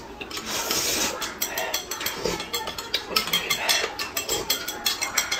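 Eating at the table: noodles being slurped, with a metal spoon clinking in a glass mug and chopsticks tapping a plate. Several short sharp clinks are scattered between the slurps.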